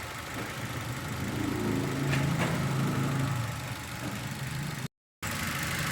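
Dongfeng Glory car engine idling, with an unstable idle and misfire; the mechanic has found compression leaking past the rings in several cylinders. The audio drops out briefly near the end.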